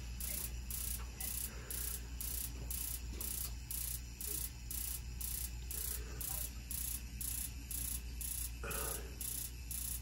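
Spark igniter on a Rheem gas water heater's pilot ticking steadily, about twice a second, sparking without lighting: the gas cock feeding the Honeywell gas control valve is shut off, so no gas reaches the pilot.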